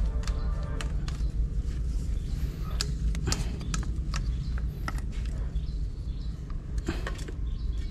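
A machine running with a steady low hum, with scattered sharp clicks and knocks over it.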